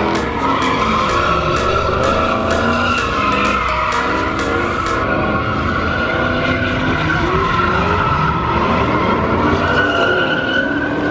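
A car spinning donuts: tyres squealing without a break while the engine revs up and down under hard throttle.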